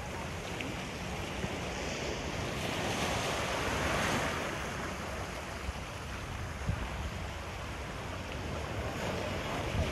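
Small waves breaking and washing over rocks and sand at the shoreline, with one wash swelling up about three to four seconds in. Wind buffets the microphone with a low rumble throughout.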